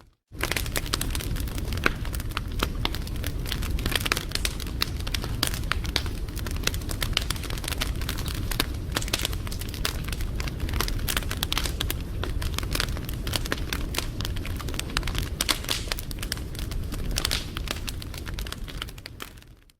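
Wood fire crackling, with dense irregular pops and snaps over a low steady rumble of flames. It starts suddenly just after a moment of silence and fades out near the end.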